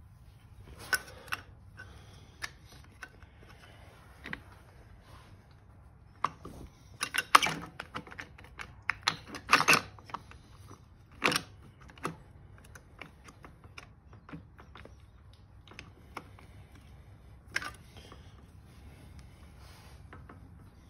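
Small metal engine parts clicking and clinking as they are handled and fitted into the open right-side crankcase of a Honda CRF110 engine. A scatter of light knocks, busiest around the middle, over a faint low hum.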